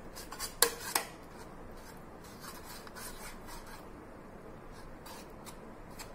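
Steel spoon scraping and clinking against a square metal baking tin while spreading sauce across its bottom: two sharp clinks about a second in, then fainter scrapes and light taps.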